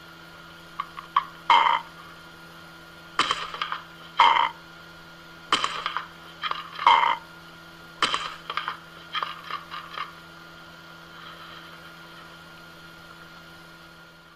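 A parrot giving a series of short, harsh, croaky squawks, about a dozen in the first ten seconds, while it squabbles with a cat over a food bowl. The squawks die away near the end, leaving a faint steady hum.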